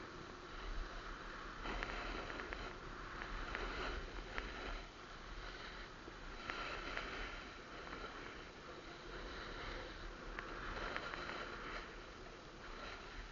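Snowboard sliding and scraping over hard, chopped snow, the hiss swelling and fading every few seconds as the board turns on its edge, with a few sharp ticks and a low wind rumble on the microphone.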